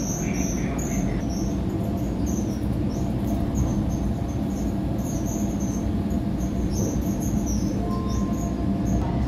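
Interior noise of a moving double-deck regional train: a steady rumble of the wheels on the track with a faint hum, and short, high squeaks that come and go every second or so.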